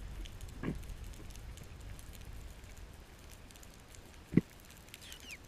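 Underwater ambience heard through the camera: a steady low rumble of moving water with fine, scattered crackling clicks, and two dull knocks, the louder one near the end.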